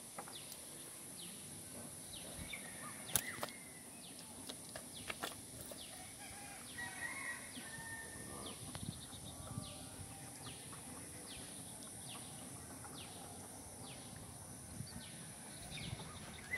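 Faint outdoor ambience: birds chirping in many short falling notes, coming about one or two a second in the second half, over a steady high hiss. A couple of sharp knocks sound around 3 and 5 seconds in.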